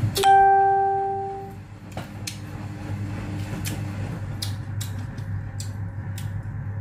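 A single plucked, guitar-like musical note a moment in, ringing and fading out over about a second and a half. Under it a steady low hum, and short wet clicks of chewing and eating by hand.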